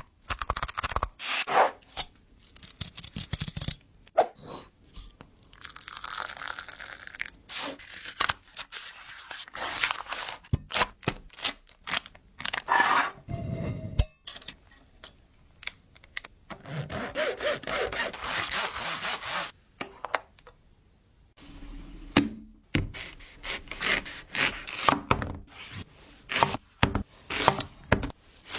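Kitchen food-preparation sounds: sharp knocks and cracks, scraping and tearing, with a few stretches of steady hiss.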